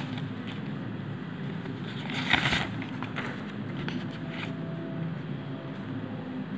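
Tissue paper rustling and crinkling as it is lifted out of a cardboard wallet box, loudest about two seconds in, followed by a few light knocks and scrapes as the leather wallet is handled and lifted out.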